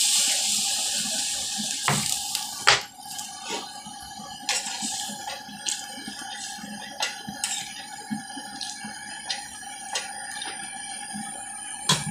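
Water poured from a plastic bottle into a hot aluminium pan of vegetable curry, hissing loudly and dying away about three seconds in. Then the curry simmers, with scattered pops and clicks over a faint steady tone.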